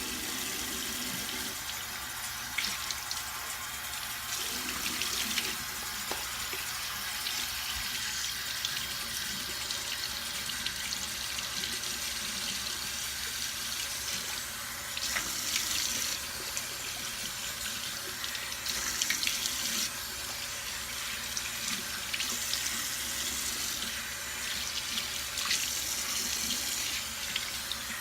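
Bathroom tap running steadily into a sink while the face is rinsed by hand. Water splashes louder several times, from about the middle on.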